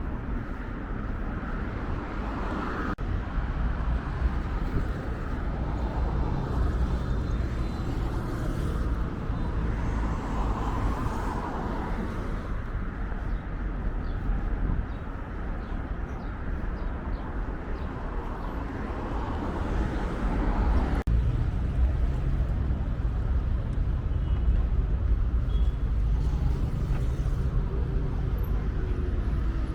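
Steady road traffic noise from vehicles on a busy road, a constant low rumble. The sound shifts abruptly twice, about three seconds in and again about twenty-one seconds in.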